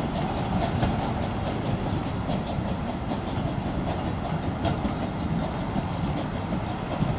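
Narrow-gauge steam train moving away over the track: a steady rumble from the freight wagons, with faint repeated clicks from the wheels on the rails.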